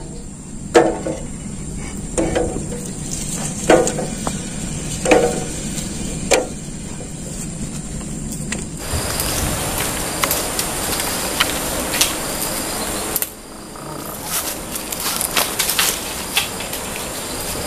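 Quail eggs knocking against a metal tin can one at a time as they are set into the water inside, about one short clunk every second and a half. In the second half a steadier hiss takes over, with scattered small clicks.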